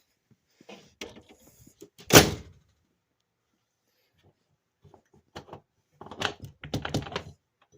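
RV entry door and its newly fitted handle and locking latch being worked: a single loud clunk about two seconds in, then a series of clicks and rattles near the end as the handle and latch are tried. The latch is held by only one screw.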